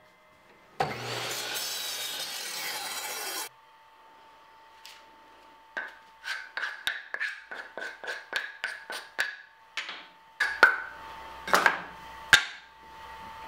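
A miter saw cuts through a small piece of maple for about three seconds. Then a small maple floating tenon is rubbed back and forth on sandpaper in quick strokes, about three a second, followed near the end by two or three sharp wooden knocks.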